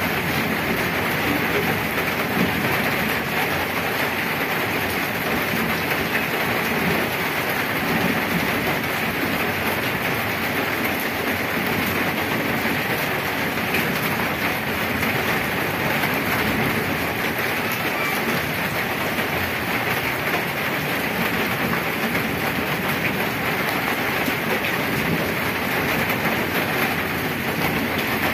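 Heavy rain falling on flooded pavement and puddles: a dense, steady hiss of drops splashing on water.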